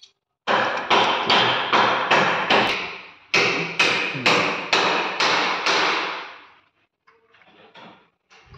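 Rapid, evenly spaced knocks, about three a second, each ringing briefly. They stop about two-thirds of the way through, and a few faint, softer knocks follow near the end.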